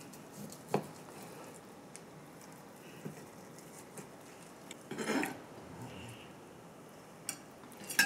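Kitchen knife slicing through a cooked chicken breast and knocking on a plastic cutting board a few times, with a sharper clink with a short ring near the end as the knife meets a ceramic plate.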